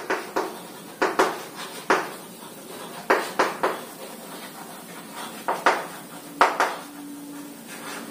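Chalk writing on a blackboard: sharp taps and short scratchy strokes of the chalk, coming irregularly in small clusters as the letters are formed.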